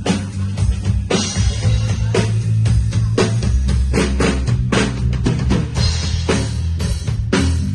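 Drum kit played in a steady groove, kick, snare and cymbals, over music with a bass line and guitar.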